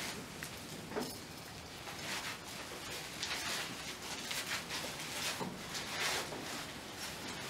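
Soft, irregular rustling and shuffling: footsteps on a hard floor and the handling of paper sheets and clothing as people move about.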